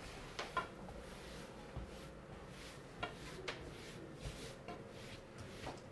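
Faint rubbing of a chalkboard eraser wiping chalk marks off the board, with a few light taps and knocks.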